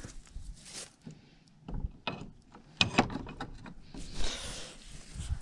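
Old iron key worked in the rusty lock of a wooden door: clicks and metal rattles from the lock, coming in clusters about two and three seconds in, then a scraping rustle about four seconds in.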